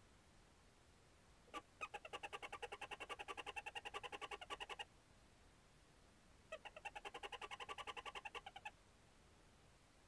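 Barn owl giving a rapid twittering call in two bouts of pulsed notes at about ten a second, the first about three seconds long and the second about two.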